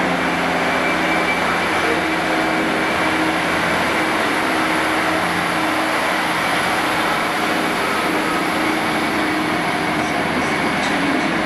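Class 153 single-car diesel multiple unit passing close by along the platform: its underfloor diesel engine runs with a steady low note over wheel-on-rail noise.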